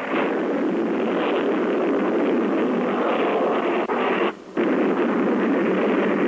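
Loud, steady rushing noise, likely a sound effect in an old radio-play recording, cut off by a brief sudden gap about four seconds in.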